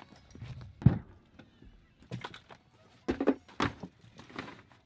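Footsteps on a concrete walk close by, with a heavy thump about a second in, then a few knocks and clunks as a car's rear door is handled.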